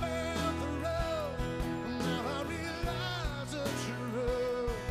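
A song: a singer's voice over instruments, with drum hits keeping a steady beat.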